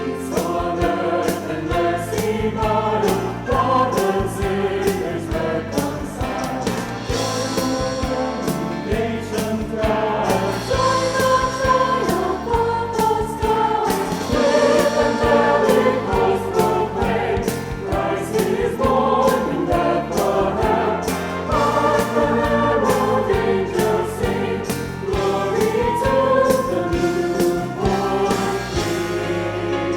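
A high school choir singing in parts with instrumental accompaniment.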